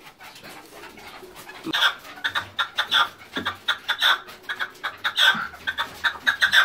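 Red-legged partridge calling: a quick run of short, clucking notes that starts about two seconds in and goes on in clusters of several notes a second.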